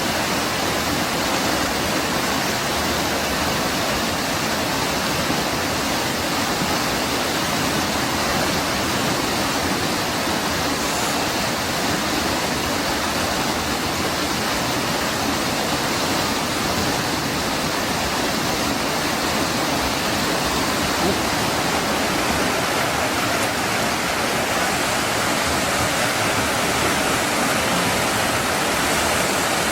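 River water rushing steadily, a constant even rush with no breaks.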